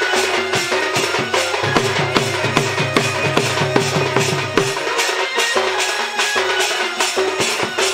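Sambalpuri folk dance music led by drums: a fast, even drum beat over sustained melodic notes, with a low bass line that drops out for a stretch in the second half.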